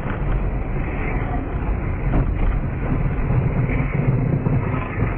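Steady low rumble of a car's engine and tyres heard from inside the cabin on a dashcam, driving along at speed.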